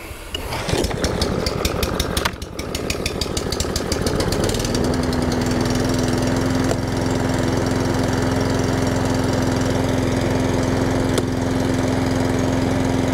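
Small petrol lawnmower engine pull-started on choke. It fires unevenly at first and falters about two seconds in, then picks up and settles into steady running on choke from about four seconds in.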